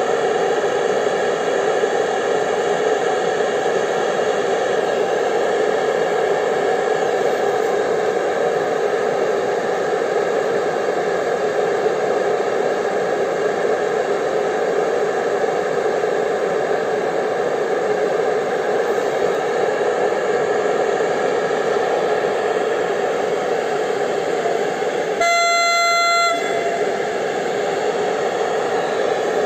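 CFR class 477 electric locomotive standing with its cooling blowers running, a loud, steady whine. Near the end comes one short horn blast of about a second.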